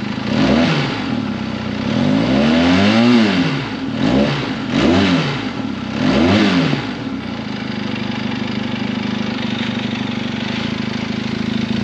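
Benelli 502C's parallel-twin engine revved through its stock exhaust four times, each rev rising and falling back, the second held longest, then settling to a steady idle for the last few seconds.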